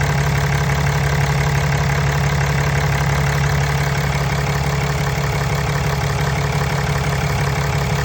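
2015 Ram 3500 pickup's engine idling steadily, with an even low hum.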